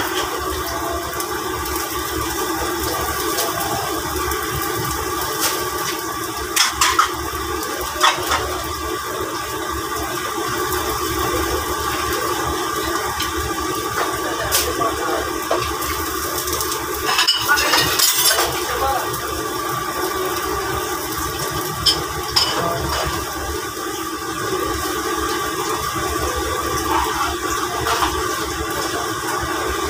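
Steady rushing noise of wok cooking on a gas burner, with a few sharp clinks of a metal spatula against the wok and pans.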